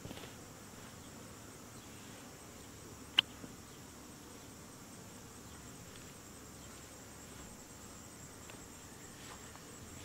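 Faint steady hum of honeybees around the hives under a steady high insect trill, with one sharp snip of hand snippers cutting grass about three seconds in.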